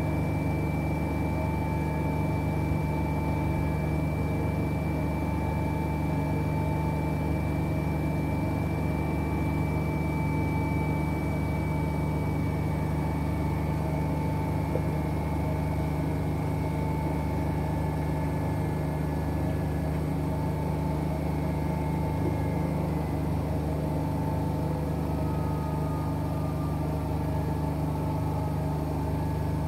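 Two front-loading washing machines, an AEG L88840 Öko-Lavamat and a Whirlpool FSCR70420, running on rinse and spin cycles. A steady motor hum carries a high whine that slowly falls in pitch through the middle.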